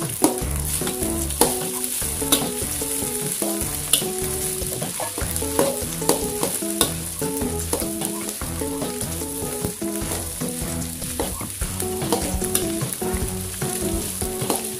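Rice being stir-fried in an aluminium wok: a steady sizzle, with the metal spatula scraping through the rice and knocking sharply against the pan now and then.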